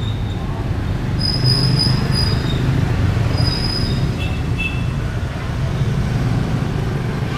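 Road traffic passing close by: a loud, steady low rumble of engines, with brief high-pitched squeals about a second in, again around three and a half seconds, and a short pair near four and a half seconds.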